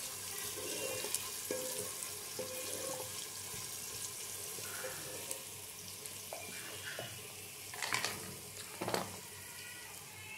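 Chopped vegetables frying in oil in a steel pot: a steady sizzle, with two sharp knocks about eight and nine seconds in.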